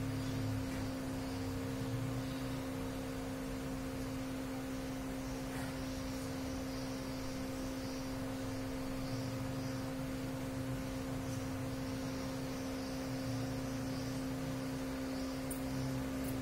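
Steady electrical hum, two constant tones held throughout, over faint background hiss and a low, uneven rumble.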